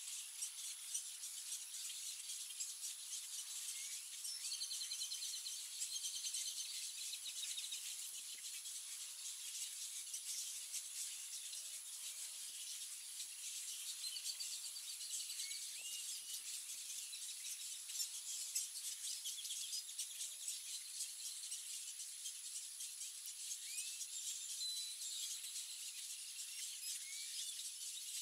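Ambience of a cattle egret rookery: a steady high-pitched hiss with a thin constant high tone and many small clicks, a few short rising bird chirps, and two brief trilling passages about five and fourteen seconds in.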